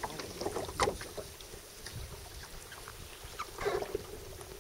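Water splashing and trickling around a mokoro dugout canoe as it is poled along, with a louder splash about a second in and another near the end.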